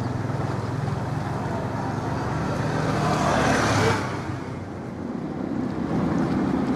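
Steady low engine drone with wind noise on the microphone, swelling briefly before falling away about four seconds in, followed by wind and the wash of choppy harbour water.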